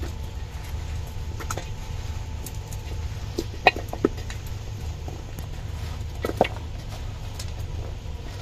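Hands tossing cut raw mango pieces with salt and turmeric in a stainless steel bowl: a soft shuffle of fruit with a few sharp clicks of pieces against the metal, the loudest a little before and after four seconds in and again past six seconds, over a steady low hum.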